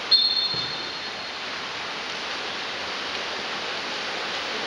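A referee's whistle blows once near the start, a high, clear blast of about a second. Steady splashing of water polo players swimming runs under it, hissing in the pool hall.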